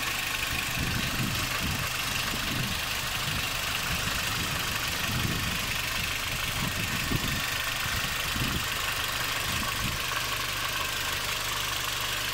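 Audi A4 B6's 2.0 ALT naturally aspirated petrol four-cylinder idling steadily, heard from above the open engine bay with a constant hiss over the engine note. The owner finds the engine's sounds abnormal: it has surged on its own at idle and he suspects a knock, cause unknown.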